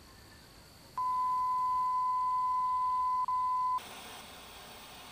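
Television with no broadcast signal: a steady high beep tone starts about a second in, with one brief break, then switches to static hiss near the end. It is the sign that the TV signal is down.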